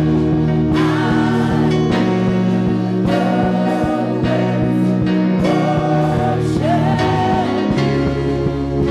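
Live gospel worship music: sustained keyboard chords with voices singing long, wavering lines over them.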